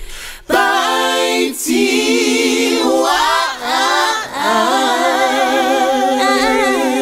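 A cappella vocal jingle: several voices sing in harmony with wavering, held notes, entering after a brief pause near the start.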